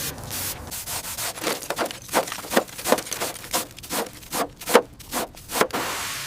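Back-and-forth rubbing strokes worked by hand over a surface, about two or three a second, the strongest a little before the end, where the strokes stop.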